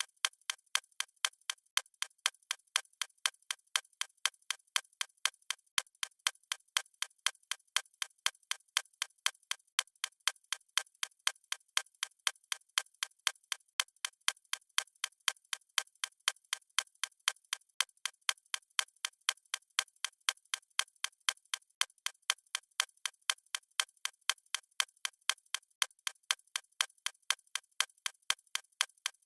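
A watch ticking fast and evenly, several light ticks a second, with no variation.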